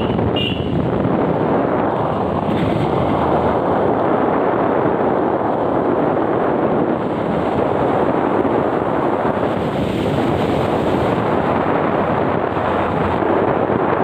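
Steady rush of wind buffeting the microphone from a moving vehicle, mixed with tyre noise on the wet road.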